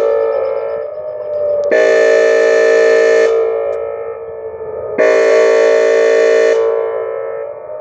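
Whelen outdoor warning siren sounding its air horn tone: harsh, steady-pitched horn blasts about a second and a half long, repeating roughly every three seconds, each cut off abruptly and echoing away between blasts.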